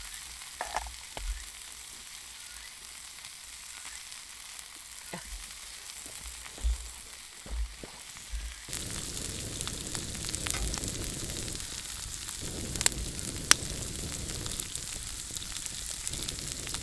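Pork-belly-wrapped cabbage rolls sizzling on a griddle over a wood fire: a steady hiss with scattered small crackles. It grows louder and fuller about nine seconds in, with a couple of sharp pops a few seconds later.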